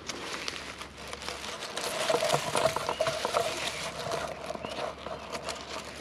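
Crackling rustle of dry grass and handling noise right against the action camera's microphone, many small clicks in a dense run, loudest around the middle.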